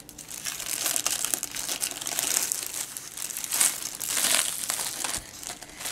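Thin clear plastic sleeve crinkling and rustling as a rolled diamond painting canvas is handled and slid back into it, with louder crinkles about three and a half to four and a half seconds in.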